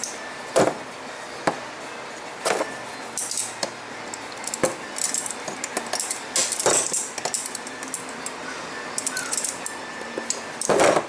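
Scattered metal clinks and knocks from the steel parts of a folding knife bayonet being handled, with a few short spells of high hiss in between.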